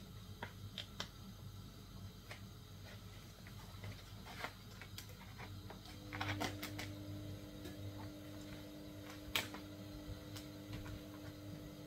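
Scattered light clicks and crinkles of hands struggling to open a packaged seasoning container, with one sharp click about nine seconds in. A steady hum comes in about halfway through.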